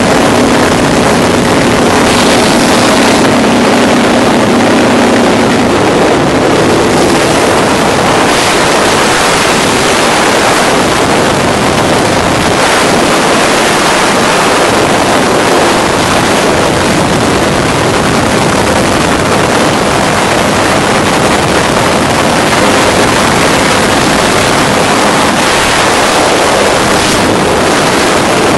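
Motorized hang glider's engine running steadily in flight under heavy wind rush on the microphone. The engine's steady tone is clear for the first several seconds, then the wind noise covers most of it.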